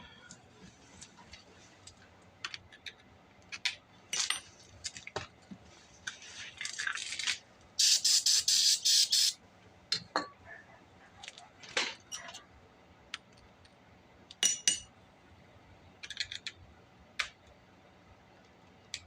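Scattered clicks and light knocks of hands handling small tool and saw parts, with a loud burst of rapid rustling about eight seconds in.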